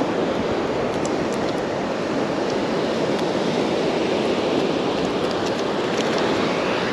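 Steady wash of breaking surf and wind, with wind noise on the microphone and a few faint small clicks.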